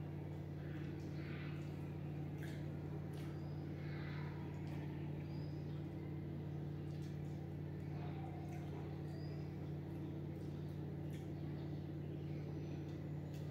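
A steady low hum runs under faint scattered taps and small clinks of people eating at a table, with a few brief faint high chirps.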